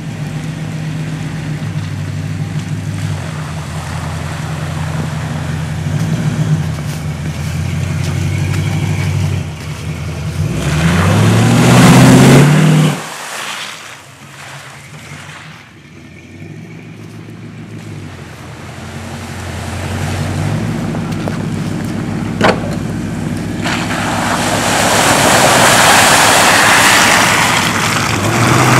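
Chevy K10 pickup with Summit Racing heads and exhaust, its engine running as the truck approaches, then the exhaust note rising as it accelerates past. It is loudest about twelve seconds in and drops away suddenly. Near the end a Jeep Grand Cherokee passes with a building rush of engine and tyre noise on snow.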